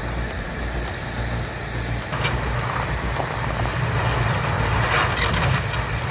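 Heavy machine's engine running steadily with a low rumble.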